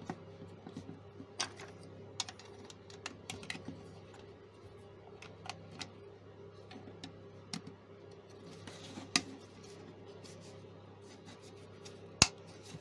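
Irregular light clicks and taps of a small plastic speaker's case and grille panel being handled and pressed together, with one sharper knock near the end.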